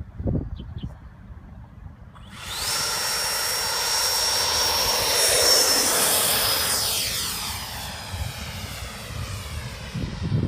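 Electric ducted fan of a radio-controlled F-16 model jet, a Freewing 90 mm fan on a 1450 kV outrunner motor, making a jet-like rushing whine with a steady high whistle. It comes up sharply about two seconds in, is loudest around the middle, then fades as the jet passes and moves away.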